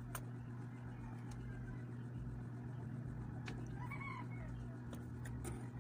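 Steady low hum with a few light handling clicks, and a short, faint chicken call about four seconds in.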